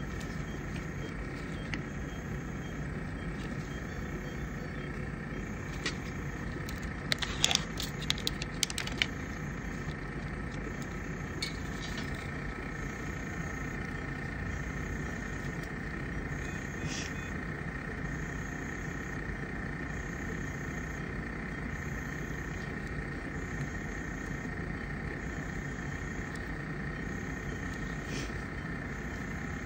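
Steady hum of running medical equipment with a faint high steady tone, and a brief cluster of sharp plastic clicks and clinks about seven to nine seconds in as the cannula and its fittings are handled.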